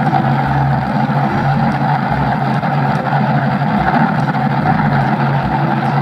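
Engine sound effect of a heavy vehicle running steadily at a constant pitch, laid over play with a toy front loader.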